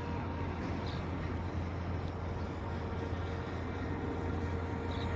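Steady low rumble of outdoor background noise, like traffic and wind, with a faint steady hum running through it.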